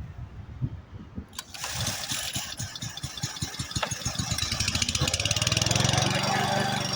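Lawn mower engine starting: a few slow, uneven firing beats, then it catches about a second and a half in, the beats quicken, and by about five seconds it settles into steady running.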